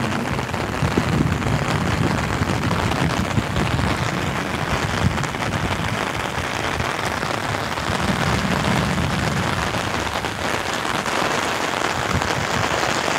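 Steady rain falling and pattering on an umbrella overhead, a dense hiss of drops, with low rumbles swelling about a second in and again around eight seconds in.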